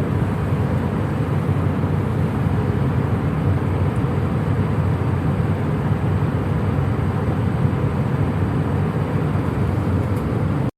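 Passenger jet cabin noise: a steady, even low rumble of engines and airflow, with no distinct events, cutting off suddenly at the very end.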